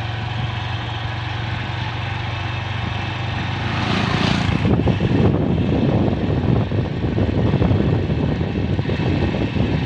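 Motorcycle engine running steadily while riding. About four seconds in, another motorcycle passes close by with a brief swell. From then on the sound is louder and rougher, gusty like wind on the microphone.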